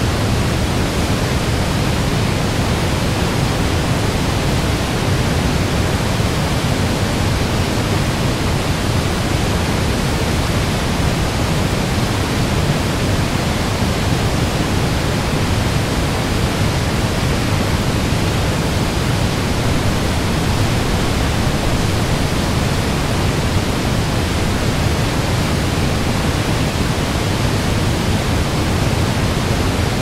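Steady, unbroken rush of a large waterfall's white water at spring flood, a deep rumble under a full hiss, with no change throughout.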